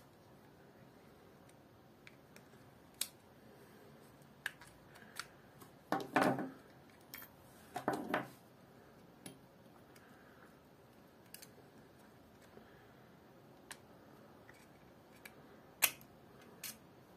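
Plastic and metal parts of a Haibo Origin 1 baitcasting reel clicking and rattling as it is taken apart by hand, with small screws handled and the side cover worked loose. There are scattered single clicks, two longer rattles about six and eight seconds in, and a sharper click near the end.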